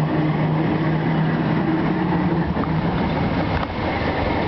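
Tram noise: a steady low hum that fades out about two and a half seconds in, over the continuous rumble of steel wheels on rails.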